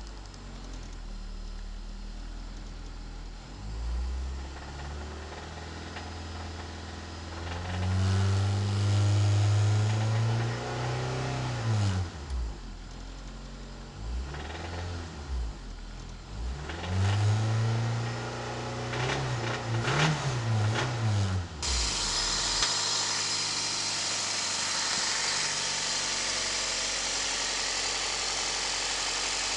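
Honda Civic engine with a spun rod bearing being revved twice, pitch climbing and dropping back each time, a sign of rod knock. About two-thirds of the way through the engine note gives way to a steady hiss.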